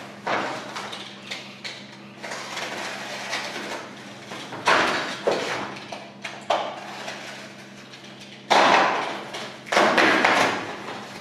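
Corrugated cardboard rustling and scraping in short bursts as a strip is wound tightly into a spiral inside a metal tin, the loudest bursts about eight and a half and ten seconds in.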